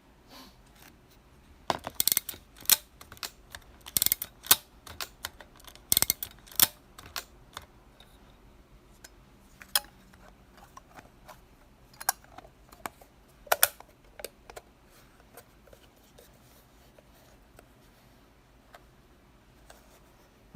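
Konica Auto S film camera and its leather case being handled: irregular sharp clicks and taps, many in the first several seconds, fewer later on, then only a few faint ones.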